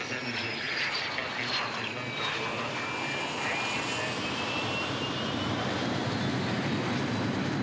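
Saab JAS 39 Gripen's single turbofan jet engine running as the fighter rolls down the runway after touchdown: a broad jet roar with a high whine that falls in pitch over the first few seconds.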